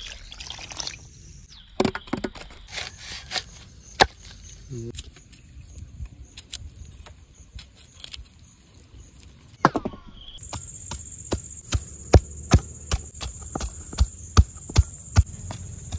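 Scattered sharp knocks and clicks. About ten seconds in, a steady high insect trill sets in, with a run of sharp knocks at about two a second over it.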